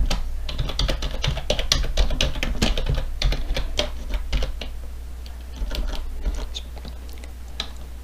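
Typing on a computer keyboard: a quick run of key clicks that thins out to scattered keystrokes over the last few seconds.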